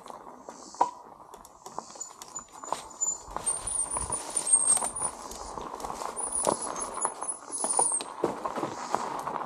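Bicycle rolling down a dirt trail: tyres crunching over dirt and twigs, with frequent rattles and knocks from the bike over the bumps. A long, thin, high squeal comes twice in the middle.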